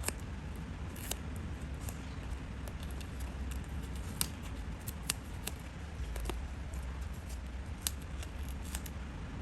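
Scissors cutting paper, with a handful of sharp snips spread unevenly through, over a steady low hum.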